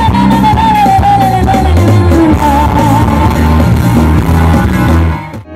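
Live rock-pop band playing through a loud PA, with a woman singing a long line that slides slowly down in pitch, over electric guitar and drums. The music breaks off abruptly near the end.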